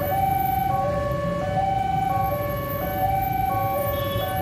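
Railway level-crossing warning alarm sounding: an electronic two-tone chime that alternates evenly between a low and a high note, over a low rumble.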